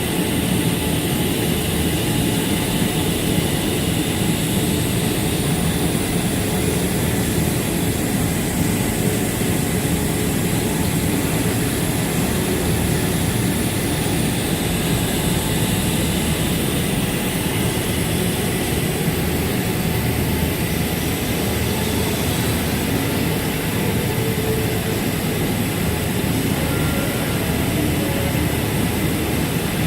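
Automatic computer-controlled fabric-cutting machine running: a steady, loud mechanical drone with faint high whines that slowly rise and fall.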